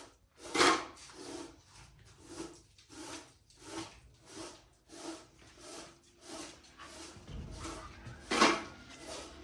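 Rhythmic scraping or rubbing strokes, about three every two seconds, with a louder stroke just after the start and another near the end.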